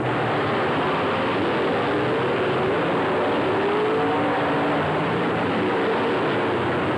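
A field of dirt late model race cars running at speed around the oval, their V8 engines blending into one steady, unbroken sound whose pitches drift up and down as cars come and go.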